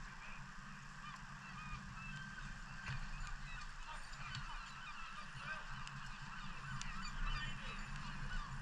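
A flock of birds calling continuously, many short honking calls overlapping, like geese, over a steady low hum.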